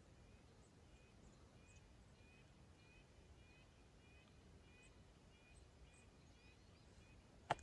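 Faint forest quiet with a bird calling, a run of short, repeated chirps, followed by a single sharp click at the very end.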